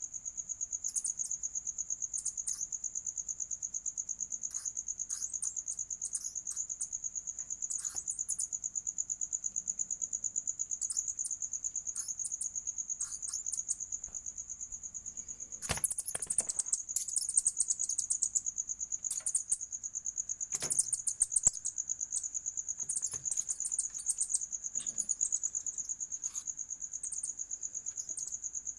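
Crickets trilling steadily in a fast, even pulse. Scattered short rustles over the trill, with louder bursts about sixteen seconds in and again near twenty-one seconds.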